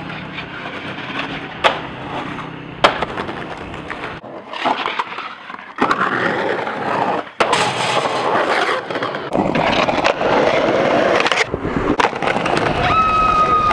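Skateboard wheels rolling on concrete, with sharp clacks of the board popping and landing, twice in the first few seconds.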